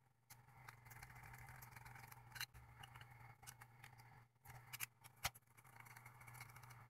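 Near silence: a few faint ticks and clicks of a small precision screwdriver turning tiny coarse-thread screws into a compact camera's plastic battery compartment, over a faint steady low hum.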